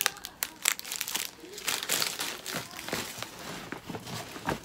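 Crinkly candy wrappers being handled, with irregular crackles and rustles and a low knock near the end.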